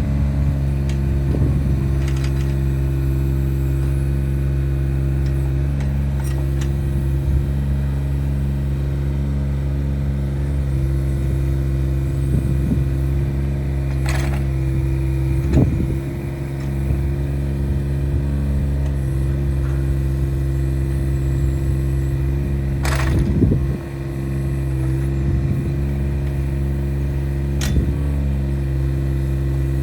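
Yanmar SV15VT mini excavator's diesel engine running steadily, with a few sharp knocks during the run.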